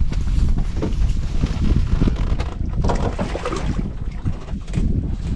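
Wind rumbling on the microphone aboard a small boat, with scattered knocks and handling noises.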